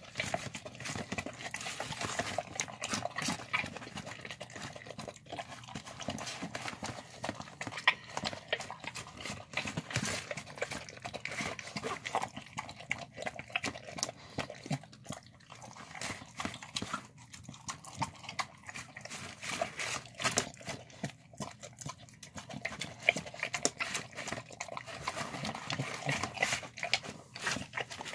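Dogs eating a wet mash of chicken, rice, vegetables and lentils from a plastic tub: rapid, irregular wet smacking, chewing and lapping, full of small clicks.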